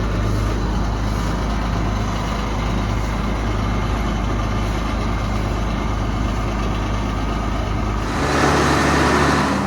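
Engine idling steadily with a low hum. About eight seconds in it changes abruptly to a louder, noisier engine sound.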